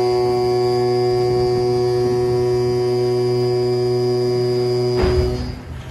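Ship's horn sounding one long, steady, low blast to signal a cargo ship's side launch; it cuts off suddenly about five seconds in, leaving a rush of low noise.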